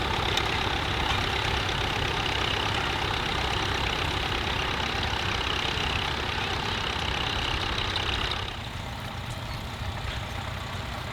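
Tractor engine running steadily while pulling a plough, turning quieter about eight and a half seconds in.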